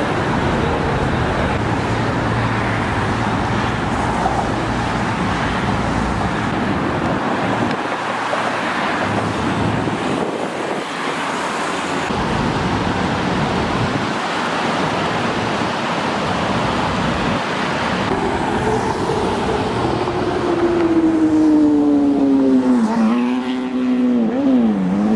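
Steady road traffic noise. Over the last few seconds one vehicle's engine note rises above it, falling in pitch and dipping sharply twice.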